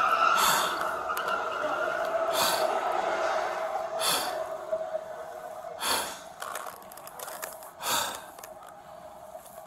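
An injured person's ragged gasping breaths, one sharp gasp about every two seconds. Under them runs a steady high tone that fades toward the end.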